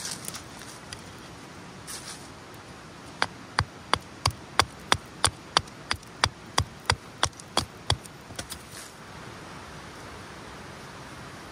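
A run of about fifteen sharp knocks, evenly spaced at about three a second, then a couple of fainter ones, over the soft crackle and hiss of a kindling fire burning in a folding metal fire stand.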